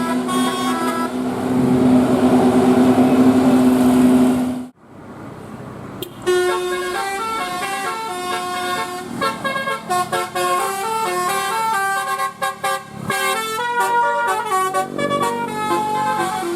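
Indonesian bus's multi-tone telolet musical horn (Basuri type). It holds one long note for about four and a half seconds, then stops sharply. After a short lull it plays a quick melody of changing notes.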